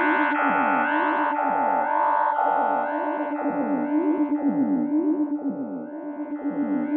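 Electronic synthesizer music: steady held tones over a quick repeating pattern of short falling pitch sweeps.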